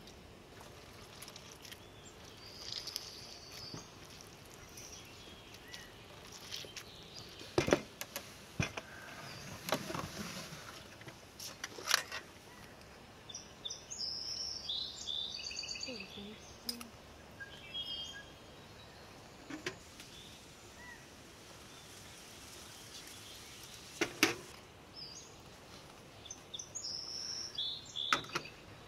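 Birds chirping over steady outdoor background noise, broken by a few sharp clinks and knocks of a metal spoon and dishes against a ceramic bowl.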